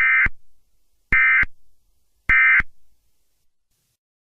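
Emergency Alert System end-of-message tones: three short bursts of digital data tones, about a second apart, signalling that the alert message is over.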